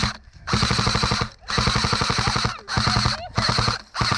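Airsoft gun firing on full auto in four rapid bursts of about half a second to a second each, with short pauses between them.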